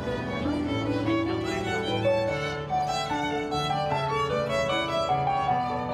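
Violin playing a melody of short, changing notes over lower held notes.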